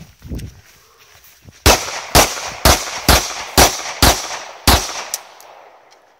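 Seven pistol shots fired in quick succession, about two a second, each followed by a short echo.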